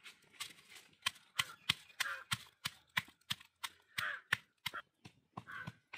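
Stone pestle pounding garlic cloves in a stone mortar: a steady run of sharp knocks, about three a second, easing off near the end.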